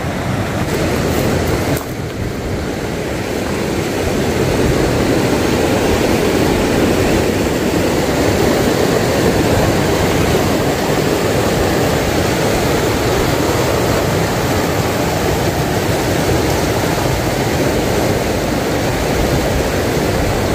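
Fast, muddy river rushing through rapids: a loud, steady rush of water that grows louder about four seconds in.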